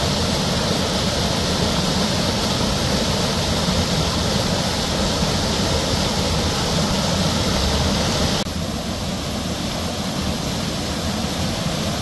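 Waterfall, a steady rush of falling water, loud and close. About eight and a half seconds in its hiss drops abruptly, going duller and a little quieter.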